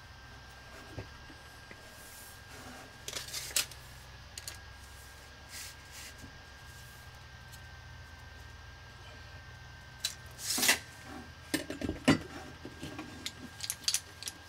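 Handling of copper pipe and a tape measure at a work table: a few light clicks about three seconds in, then a cluster of metallic clicks and knocks from about ten seconds in, over a faint steady hum and a thin high tone.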